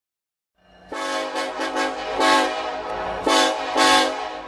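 Locomotive air horn sounding one continuous blast that swells louder three times.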